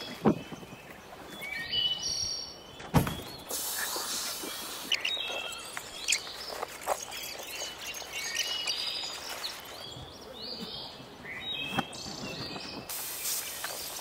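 Outdoor birdsong: birds chirping and calling over and over. Sharp thumps come just after the start and about three seconds in, with a few lighter knocks later.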